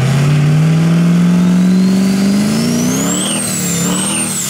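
Duramax diesel race truck doing a burnout with its rear tyres spinning: the engine revs climb steadily for about three seconds, then dip and rise again. A high turbo whistle rises and falls with the revs.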